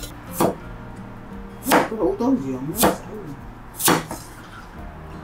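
Chinese cleaver chopping chayote on a wooden cutting board: four chops about a second apart, the blade cutting through the squash and knocking on the board. Background music with steady tones plays underneath.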